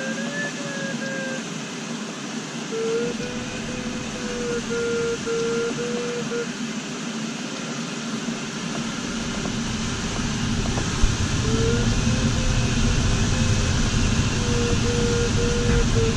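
Steady rush of airflow over a glider's canopy, with the variometer's audio tone beeping on and off at a slightly wavering pitch. About halfway through, a deeper rumble of wind buffeting comes in and the noise grows louder.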